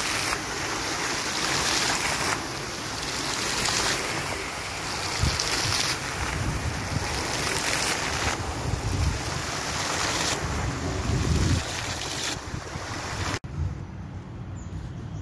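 Steady rushing and splashing of fountain water jets, mixed with wind buffeting the microphone in low gusts. The noise drops off abruptly about thirteen seconds in.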